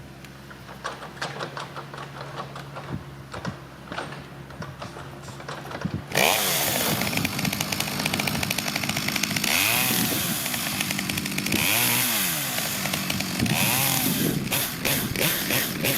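Stihl MS 660 two-stroke chainsaw idling, then from about six seconds in throttled up to high revs. It keeps running hard, its pitch rising and falling several times as it cuts firewood.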